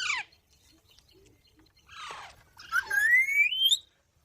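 Rose-ringed (Indian ringneck) parakeet calling: a short harsh call about two seconds in, then a longer screeching call that rises in pitch.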